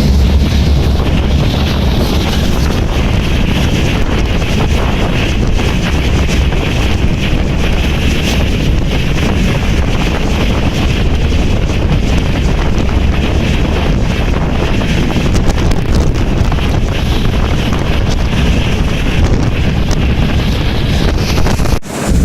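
Heavy wind buffeting the microphone over the steady low rumble of a moving freight train, heard from a rider on board. It cuts out briefly near the end.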